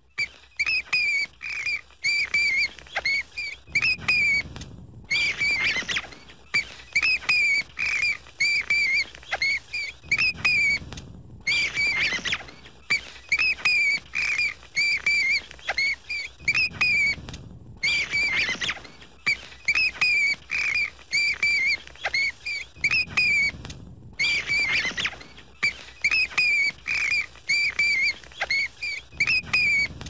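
Bat squeaking: a rapid series of short, high squeaks, about two to three a second, each rising and falling in pitch. The bouts are broken every five or six seconds by a brief rustling noise and a short pause.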